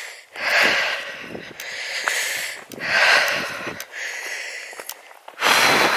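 Heavy breathing of a hiker walking uphill, close to the microphone: three loud breaths about every two and a half seconds, from the effort of the climb.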